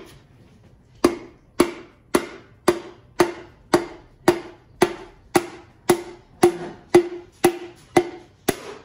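Steady series of sharp knocks, about two a second, starting about a second in: the butt of a hammer handle tapping a piston crown to drive the piston and its new rings down into the cylinder bore.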